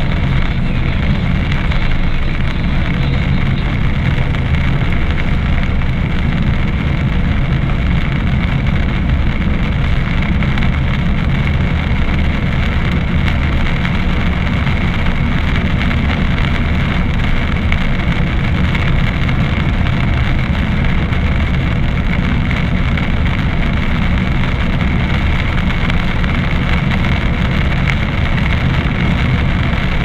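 Steady cabin noise from a car driving on a wet road: engine and tyres running, with rain on the windscreen.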